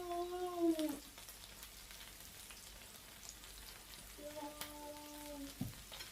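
Meat sizzling quietly on a tabletop gourmet grill, with small clicks of cutlery and pans.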